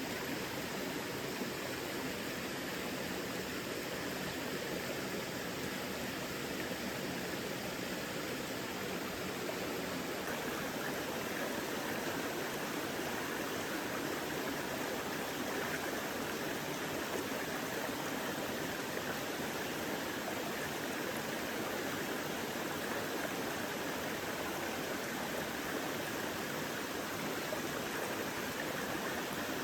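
A mountain stream flowing, a steady, unbroken rush of water.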